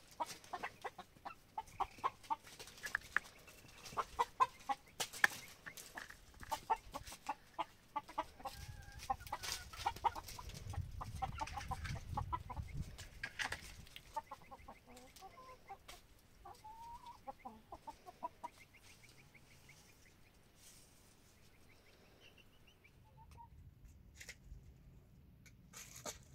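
Chickens, hens and a rooster, clucking in quick runs of short notes, with scattered sharp clicks among them. The clucking thins out and goes quieter about two-thirds of the way through.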